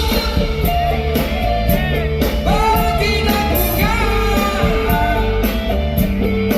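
Rock band playing a song live: a singer over guitar, bass and drums.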